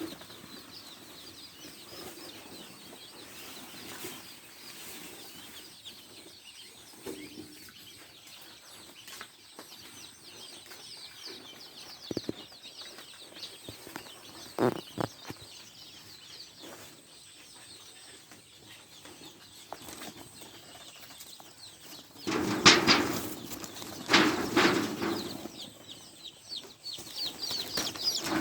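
Chickens in a poultry flock: many faint, high chirps keep on throughout. Louder bursts of commotion come in the last few seconds.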